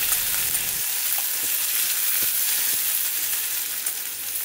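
Chopped onions and crushed garlic sizzling in hot oil in a stainless steel kadhai, stirred with a slotted spatula that scrapes and ticks against the pan a few times.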